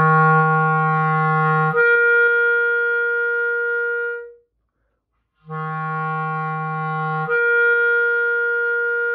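Clarinet playing a held low F, then jumping suddenly up a twelfth to C as the register key is pressed, the C held about two and a half seconds. Played twice, with a short silence about four seconds in.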